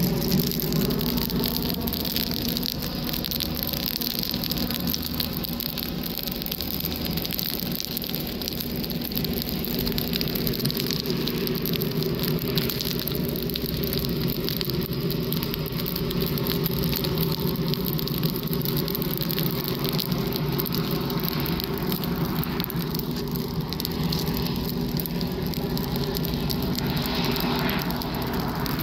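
Steady engine drone with the crackle of burning dry grass.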